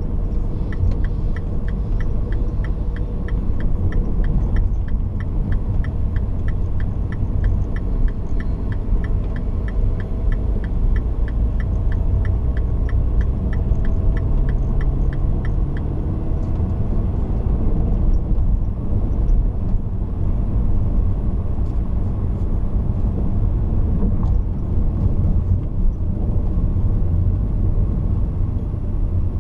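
A car driving along a winding road: a steady low rumble of engine, tyres and air. A faint, regular ticking of about three a second runs under it and stops about halfway through.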